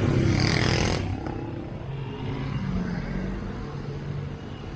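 Street traffic: vehicle engines running in slow, congested traffic, with a loud rushing hiss in about the first second that then fades.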